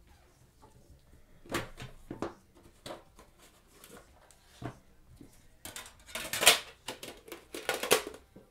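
A red trading-card box and its metal tin being opened and handled: a few light clicks and knocks, then a louder stretch of scraping and rustling about six seconds in.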